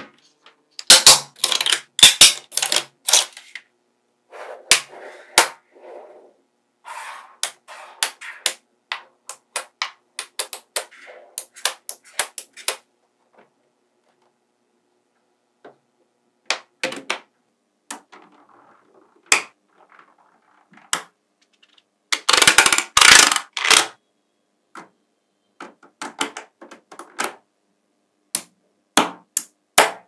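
Small magnetic balls clicking and clattering as sheets of them are snapped onto one another and stacked, in sharp irregular clicks and quick rattling clusters, with a longer clattering run about three-quarters through.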